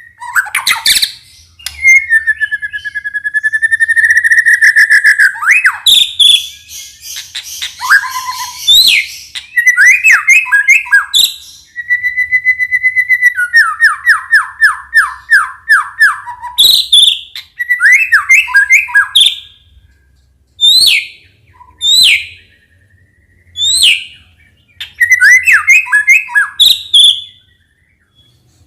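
White-rumped shama (murai batu) singing a varied song: long clear whistles, a scratchy passage, a fast run of repeated notes, then sharp downward-sweeping calls in short phrases with brief pauses between them.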